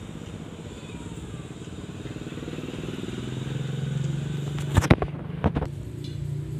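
A small engine running steadily and growing louder about three to four seconds in, with a few sharp knocks about five seconds in.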